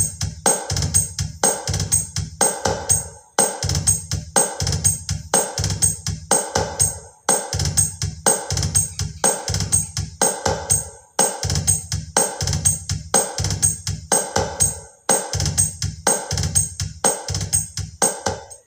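Drum-heavy music with a steady beat and deep bass hits, played through a loudspeaker cabinet with two 15-inch RCF woofers and a tweeter. The music has short breaks about every four seconds and cuts off suddenly near the end.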